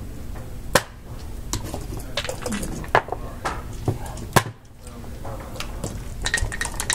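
Backgammon dice cast from a dice cup onto the board and picked up again, giving several sharp clicks of dice and pieces against the board, over a low murmur of voices.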